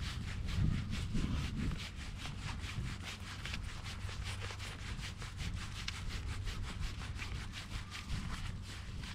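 Foil-faced closed-cell foam sleeping mat being rolled up tightly by hand: a quick, steady scratchy rubbing of about four or five strokes a second, over a low rumble.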